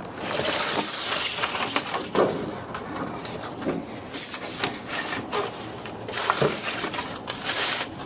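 Close rubbing and scraping with many scattered clicks and knocks, like objects being handled and moved against each other, at a fairly steady loudness throughout.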